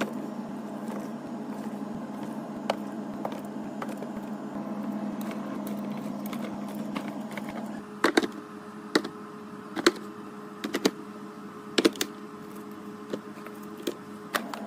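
Items being handled and set down: light clicks and rattles over a steady hum, then sharper knocks about once a second from about eight seconds in.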